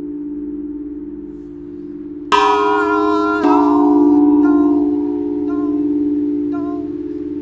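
Tall metal tubes of an outdoor chime sculpture being struck: two notes about two seconds in, a second apart, each ringing on over the low sustained hum of the tubes already sounding.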